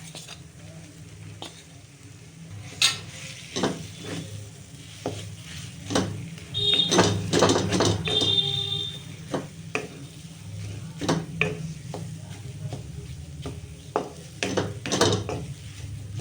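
A spoon scraping and knocking against a kadhai as ginger and date paste is stirred and roasted in ghee over a low flame. The strokes are irregular, busiest about halfway through with a brief squeaky scrape, and a steady low hum runs underneath.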